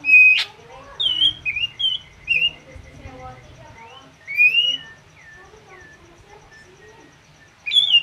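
Drongo (srigunting) singing: a loud, sharp whistled note at the start, a string of clear whistled notes, a rising-then-falling phrase about halfway, a run of short falling notes, and another loud note near the end.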